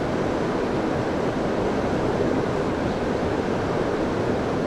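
Mountain river water rushing steadily over its bed, an even hiss with no breaks.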